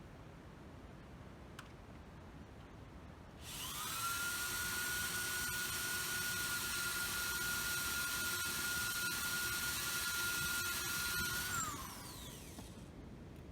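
Deko DKSD400W drill-driver speeding up with a rising whine, running at a steady high-pitched whine for about eight seconds while drilling metal, then winding down.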